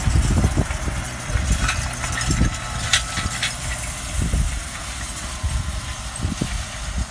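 Farm tractor engine running while it tows a wheel hay rake past, with an irregular low rumble, growing fainter over the second half as it pulls away.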